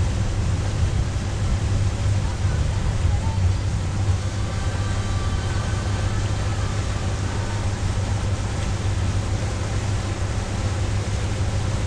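Boat engine running steadily as the boat travels on the river, a constant low drone with a rushing noise over it.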